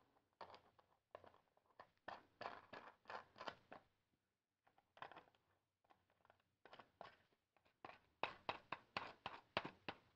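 Metal washers and nuts being fitted by hand onto the threaded rods of a wooden bulkhead: a string of faint, irregular clicks and light scrapes, coming thickest near the end.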